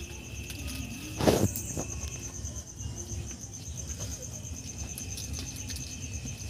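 Crickets chirping in a steady, fast-pulsing trill, with one sharp crack about a second in.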